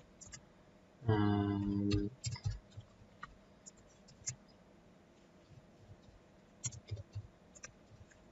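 Computer keyboard keystrokes, sparse and irregular, a few clicks at a time while code is typed. About a second in, a man's voice holds a drawn-out hesitation sound for about a second.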